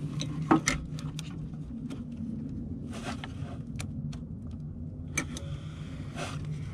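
Sharp metal clicks and short scraping and rattling as a hand wrench and loosened parts are worked around a generator's carburetor to free it from the engine, over a steady low hum. The loudest click comes about half a second in.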